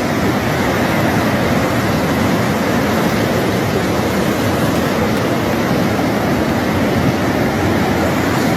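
Flash-flood water rushing in a torrent, a loud, steady, unbroken noise.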